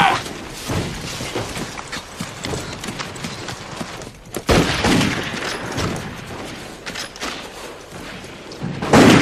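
Battle gunfire: scattered, overlapping rifle and machine-gun shots, with a sudden louder stretch starting about four and a half seconds in.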